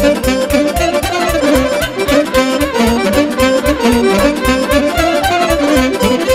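Instrumental passage of Romanian folk party music: accordion and fiddle playing a fast melody over a steady, quick bass beat.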